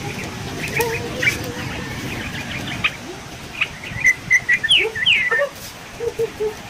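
Birds chirping in short, rapid calls, busiest about four to five seconds in, with a few quick falling notes.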